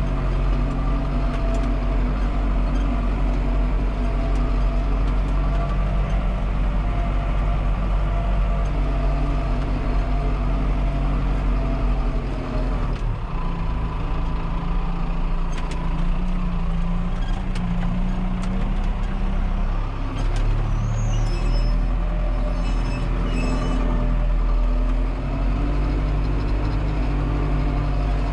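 Tractor engine running steadily under load while it tows a harrow breaking up dry soil clods. Its note shifts for a while around the middle.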